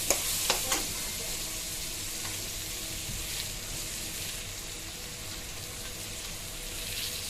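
Spiced masala frying and sizzling in a pan, a steady hiss. A few clinks of a stirring spoon against the pan come in the first second.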